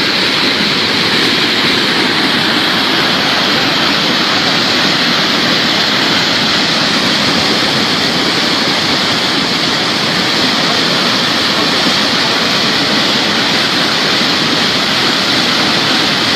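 Floodwater in a swollen river rushing past in a loud, steady, unbroken wash of noise.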